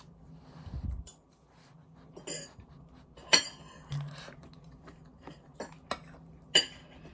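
Metal spoon and fork clinking and scraping against a ceramic dinner plate while eating, with a few separate sharp clinks, the loudest about three seconds in and near the end. There is also a soft low thump about a second in.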